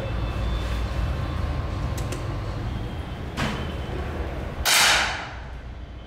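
Match air pistol shots: a sharp click about halfway through, then a louder short hissing pop a little before the end, over a steady low hum.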